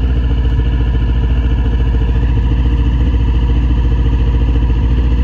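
2021 Ski-Doo Skandic WT snowmobile engine idling steadily at about 1650 rpm.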